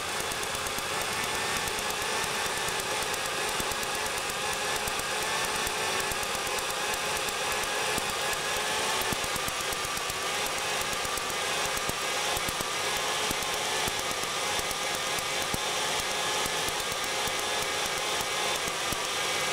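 Ford engine running steadily at idle with a misfire, the fault the video puts down to an ignition coil.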